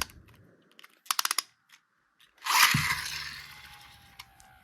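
Hard plastic Beyblade X ripcord launcher being handled: a quick run of sharp ratcheting clicks about a second in, then a louder scraping rush with a thump that fades away.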